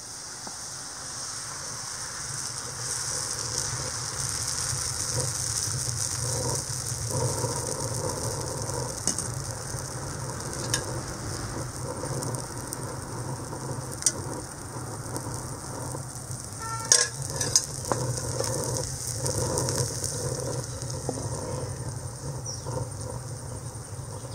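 Dosa batter sizzling on a hot griddle as it is spread and oil is drizzled over it, the sizzle growing louder in the first few seconds. A few sharp metallic clicks come about two-thirds of the way through.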